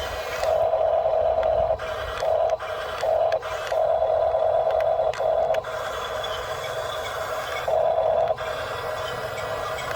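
Small electric motors and plastic gearing of an RC toy construction vehicle whining in a string of on-off bursts, one long run of nearly two seconds among shorter ones, with a faint motor hum between them.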